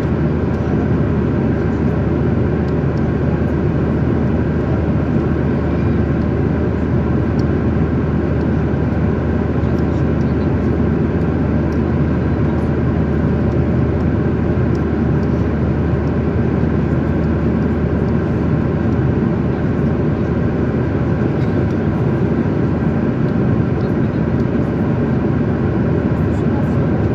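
Steady cabin noise of a jet airliner at cruise: a constant low rush of engine and airflow noise, with a few faint steady tones above it.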